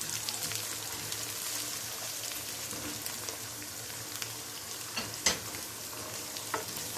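Chopped onions and tomatoes sizzling in oil in a nonstick wok while being stirred with a wooden spoon, cooking down until soft. A steady sizzle with small crackles, and a couple of sharper clicks about five seconds in.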